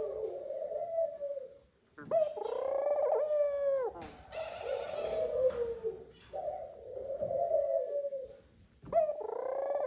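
Male ring-necked dove giving its nest call: a run of low, throaty coos with short pauses between them, calling the female to the nest.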